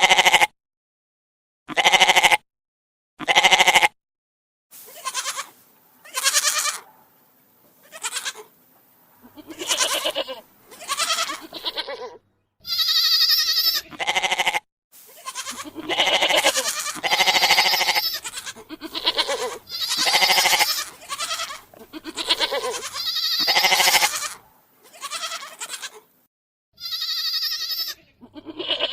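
A string of about twenty goat bleats, one every second or so. The first few stand apart with dead silence between them; later they follow more closely.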